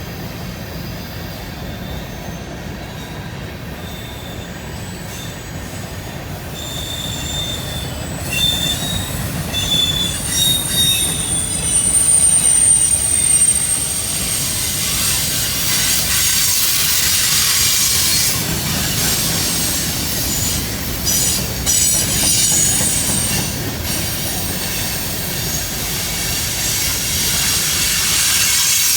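CSX freight train rolling past over a steady rumble of the cars, with steel wheels squealing against the rail in thin high tones that come and go in the middle.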